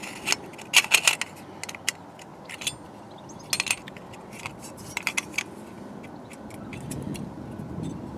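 Small metal clicks, rattles and scrapes in several short bursts as a headlight bulb and its metal bulb holder are handled and fitted into the headlight bowl.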